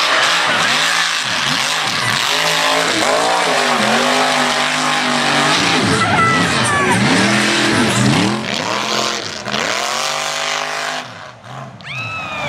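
Mud racing truck's engine revving hard through the mud pit, its pitch climbing and falling again and again every second or two over a steady rushing noise. It drops off briefly near the end.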